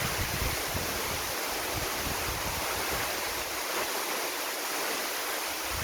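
Steady rushing of a waterfall, with wind buffeting the microphone in uneven low gusts.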